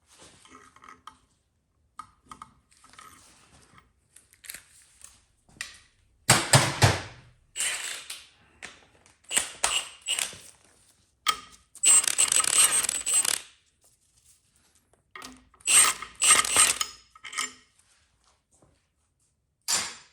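Hand ratchet clicking in short spells, with metal clinks and clanks, while the oil pump bolt is backed out and the pump taken off a small-block V8. The longest, loudest spell of ratcheting comes about halfway through.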